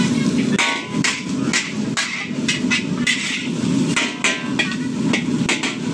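Metal spatula striking and scraping a large steel wok during stir-frying: a quick, irregular run of metallic clanks that starts about half a second in, over a steady low rumble.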